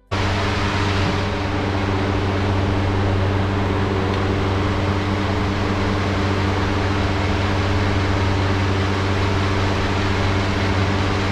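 A machine running steadily: a constant low hum with a dense hiss over it.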